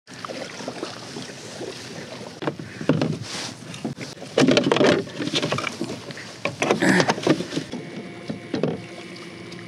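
Kayak paddle splashing in the water and knocking against the fishing kayak as it is handled and stowed: an irregular run of clunks and splashes, loudest in the middle, over a steady wash of water.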